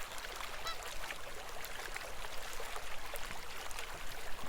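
Honking waterfowl call once, about a second in, over steadily trickling, babbling river water, added as sound effects to the swan scene.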